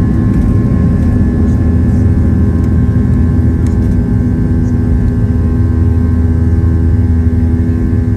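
Boeing 737-700's CFM56-7B jet engines heard from inside the passenger cabin: a loud, steady drone with several steady tones held above it.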